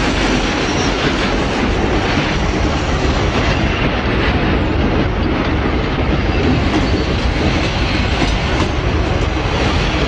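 Train running past, a loud steady rumble of the rolling wagons.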